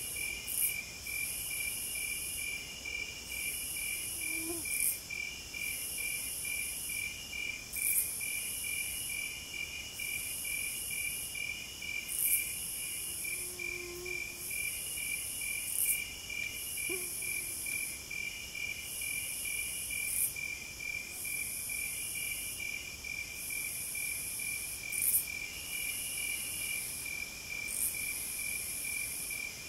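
Insects chirping steadily in a cricket-like chorus: a regular pulsing chirp about three times a second over a high buzz that swells and breaks off every second or two, with a few louder chirps standing out every few seconds.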